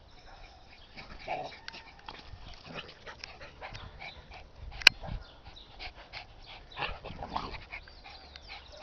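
A dog making short, scattered calls and noises, with one sharp click about five seconds in.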